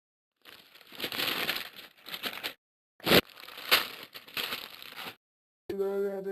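Two stretches of harsh, crackling noise, each about two seconds long, with a sharp click between them, followed near the end by a held, pitched voice.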